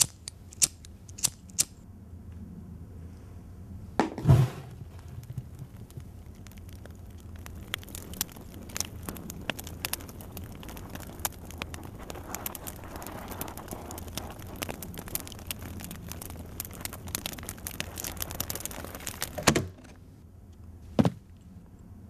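A few sharp clicks and a heavy thump about four seconds in, then about twelve seconds of dense crackling and popping from a fire burning in an open box. The crackling cuts off abruptly, followed by one more thump.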